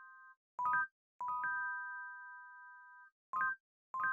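Background music made of bell-like chime notes: a short run of quick notes, then a held three-note chime that rings and fades. The pattern repeats about every three seconds, with brief silences between.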